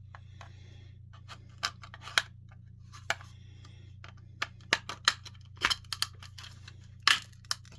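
Irregular clicks and taps of a plastic carbon monoxide alarm case being handled and worked at with tools, with a couple of short scrapes; the clicks come thicker in the second half. A steady low hum runs underneath.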